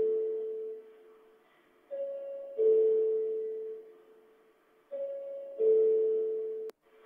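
Electronic two-tone ding-dong chime, a higher note followed by a louder, lower one that fades, repeating about every three seconds; the last chime cuts off suddenly near the end. It is the chamber's call for legislators to take their seats before the session opens.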